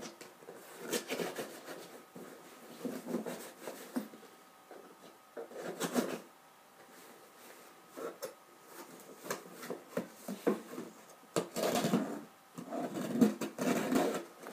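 Cardboard shipping box being opened by hand: irregular scraping and rubbing of cardboard and packing tape with a few sharp knocks, in short bunches that grow busier near the end.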